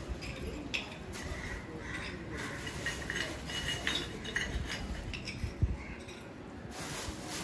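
Small clay diyas (earthenware oil lamps) clinking and knocking lightly as they are handled and set down on a hard surface, with one heavier knock about five and a half seconds in.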